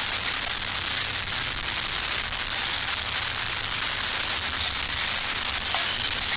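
Small camp stove fires burning, wood and alcohol: a steady hiss with faint scattered crackles.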